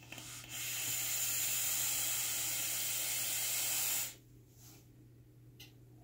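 A BTFC RDA with a 0.20-ohm fused Clapton coil firing at 95 watts during a long draw: a steady, loud hiss of e-liquid vaporizing on the coil and air pulled through the atomizer's airflow. It starts about half a second in and cuts off after about three and a half seconds.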